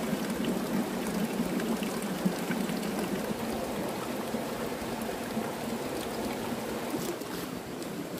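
Running water rushing steadily, like a stream flowing.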